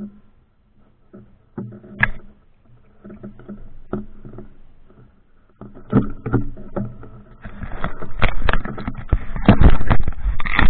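Handling noise on a camera being gripped and pulled off its mount: scattered knocks and clicks at first, then from about two-thirds of the way in, dense rubbing and bumping right on the microphone that grows louder toward the end.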